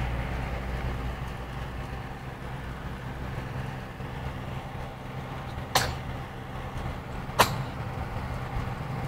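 Baby hiccupping: two short sharp hiccups about a second and a half apart, with a third just at the end, over a steady low rumble in the background.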